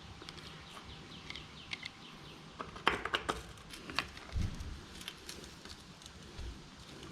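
Metal tool clicks, clinks and light knocks as a bottom bracket removal tool is fitted onto the old bottom bracket cup and worked with a wrench, with a cluster of sharp clicks about three seconds in and a few dull thumps later.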